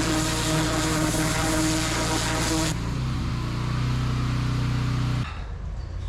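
A 3650 PSI engine-driven pressure washer running at full power, its turbo nozzle spraying with a loud hiss as it shreds a pumpkin. About two and a half seconds in the spray cuts off suddenly while the engine runs on, and about five seconds in the engine note drops away, leaving a low rumble.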